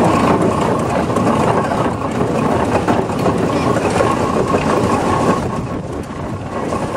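Steam traction engine on the move, heard from its footplate: a loud, steady, dense mechanical clatter of the engine's motion and gearing as it travels along the road.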